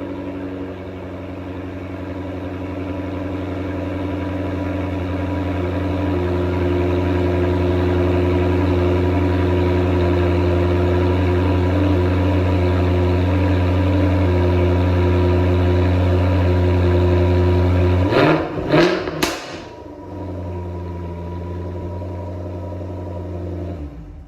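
Jaguar F-Type R's supercharged 5.0-litre V8 idling steadily through its sports exhaust after a cold start, growing louder over the first several seconds. About eighteen seconds in it is blipped hard three times in quick succession, then settles back to idle until the sound cuts off.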